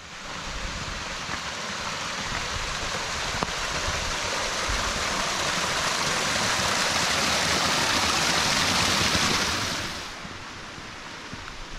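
Small waterfall splashing down a rock face onto stones right beside the trail: a steady rush of falling water that grows louder, then drops away sharply about ten seconds in to a quieter hiss.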